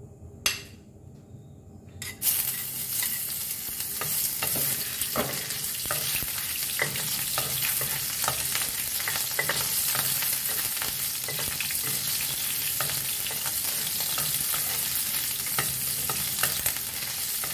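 Cubed prawns fried in hot oil in a nonstick frying pan. A single click about half a second in, then a sudden sizzle about two seconds in as the prawns hit the oil. The sizzle carries on steadily, with crackles and spatula strokes as they are stirred.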